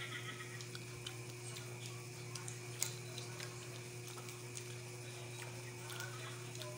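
Nut shells cracked open by hand, making small irregular clicks and snaps, with one sharper crack about three seconds in. A steady low electrical hum runs underneath.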